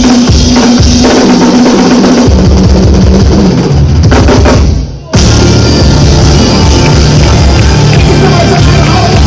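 Loud live band music, drum kit and bass guitar to the fore. The sound dips briefly about five seconds in, then comes straight back in.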